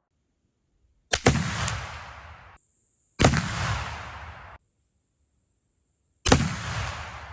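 Three shots from a .50 caliber black-powder muzzleloader rifle, about one, three and six seconds in. Each is a sharp crack followed by a rumbling tail that cuts off abruptly after about a second and a half.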